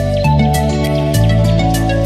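Background music: held bass notes that shift to a new pitch about every second, under a light, steady tick of percussion.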